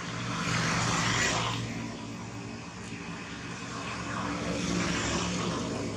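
Motor engine noise: a steady low hum that swells and fades twice, about a second in and again near the end, as of vehicles going past.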